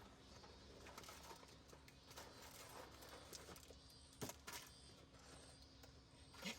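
Near silence with faint background noise and a few soft clicks, two of them about four seconds in.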